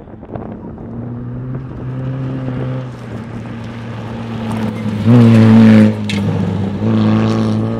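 Volkswagen Kombi van's engine running hard at steady high revs while the van speeds and slides on a gravel road, with a rush of tyre and road noise underneath. It gets loudest about five seconds in.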